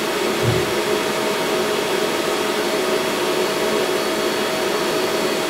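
Bitmain Antminer L3+ mining rig's cooling fans running at high speed under mining load: a loud, steady rush of air with a steady hum through it.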